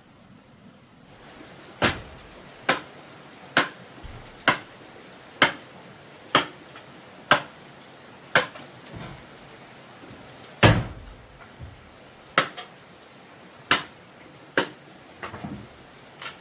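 A series of sharp strikes, roughly one a second, starting a couple of seconds in; one strike about two-thirds of the way through is louder and deeper, and a quick cluster of lighter taps comes near the end.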